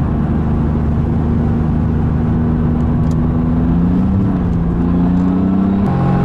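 BMW Z4 Clubsport engine heard from inside the cabin, pulling under power with its pitch slowly rising as the car accelerates. The pitch drops suddenly near the end, at a gear change.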